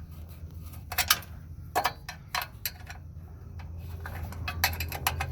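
Sharp, irregular metallic clicks and clinks of a hand tool working the screws on a snowblower's recoil starter housing. There are a few single clicks, then a quicker run of them near the end, over a steady low hum.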